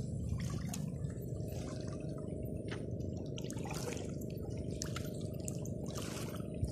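Small waves lapping and dripping at a lake's stony edge, scattered little splashes over a steady low noise.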